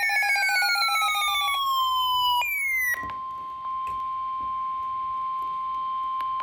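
Electronic emergency alert tones. A siren-like tone falls in pitch for about two seconds, a second shorter tone sweeps down, and then a steady single tone near 1 kHz holds for about three and a half seconds before cutting off abruptly. That steady tone is the NOAA Weather Radio 1050 Hz warning alarm tone, which comes ahead of a warning message.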